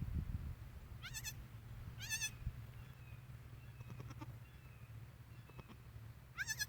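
Newborn goat kid bleating: three short, high-pitched, quavering bleats, about a second in, about two seconds in and near the end, over a steady low hum.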